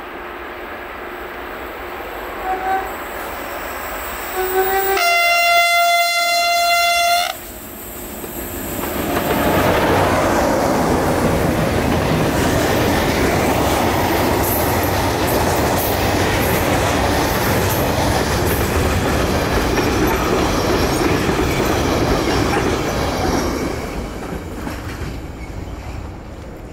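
A freight locomotive's horn sounds one long blast of about two seconds, about five seconds in. Then a long freight train passes close by, its wagons rumbling and wheels clattering steadily for about fifteen seconds before dying away near the end.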